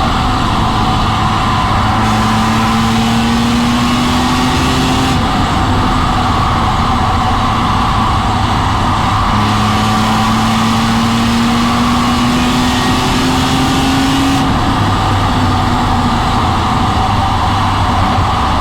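BMW E46 M3's S54 inline-six heard from inside the car at track speed, pulling hard. Its pitch climbs slowly twice, dropping back between the two pulls.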